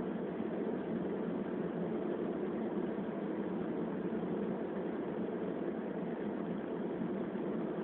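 Steady driving noise inside a moving car's cabin, mostly tyre and road rumble with the engine under it, picked up by a phone's microphone.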